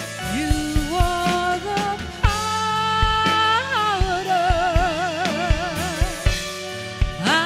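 Live gospel worship music: a solo voice sings a held, gliding line with vibrato over keyboard chords and steady drum hits.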